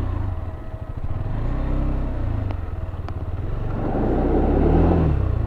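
KTM 390 Adventure's single-cylinder engine running at low speed on loose dirt, its revs rising and falling twice, with a louder, rougher stretch about four seconds in.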